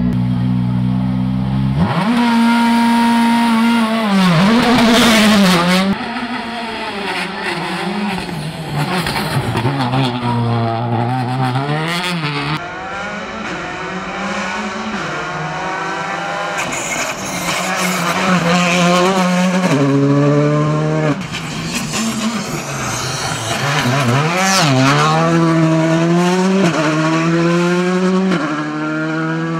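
Skoda Fabia R5 rally car engine at racing speed. A steady engine note for the first two seconds, then the pitch climbs and drops again and again as the car accelerates hard through the gears and lifts off between them.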